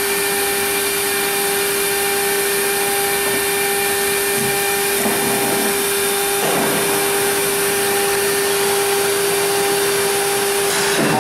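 Stone CNC router's water-cooled spindle running at constant speed with a steady whine over a strong hiss, as it works a ceramic piece under coolant.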